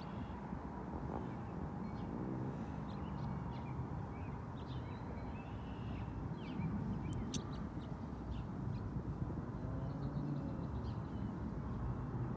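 Outdoor background: a steady low rumble of ambient noise with scattered short, high bird chirps.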